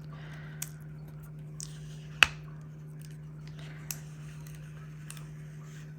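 A few small clicks and taps from handling paper stickers and craft tools on a desk, the sharpest about two seconds in, over a steady low hum.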